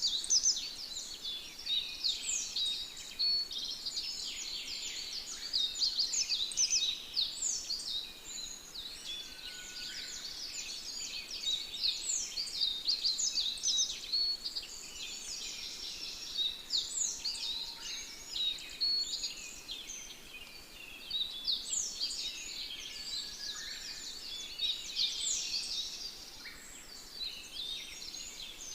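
A dense chorus of many birds chirping and twittering at once: rapid, overlapping short high notes, many of them falling in pitch, swelling in clusters every few seconds.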